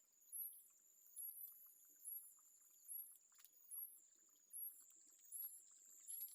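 Faint outdoor insect chorus: a steady high-pitched trill with a high double chirp repeating about once every 0.8 seconds.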